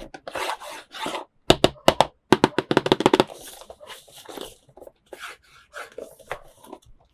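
Hands handling plastic toy pieces and packaging: rubbing and scraping, with a few sharp clicks about one and a half seconds in and a fast run of clicks about two seconds in.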